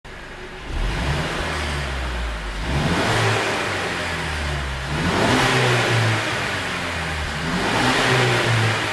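Mercedes-Benz E200 turbocharged four-cylinder engine, ECU-tuned for exhaust pops, being revved in repeated swells every two to three seconds.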